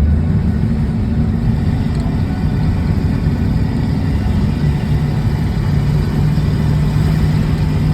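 Vehicle engine running steadily with road noise while driving, a low hum that grows a little stronger about halfway through.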